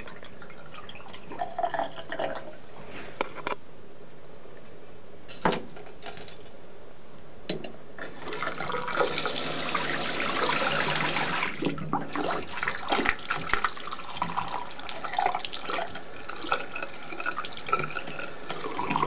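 Cloth towel rustling and rubbing as a wet hedgehog is patted dry, with scattered soft clicks and crackles. For about three seconds near the middle there is a steady rushing hiss.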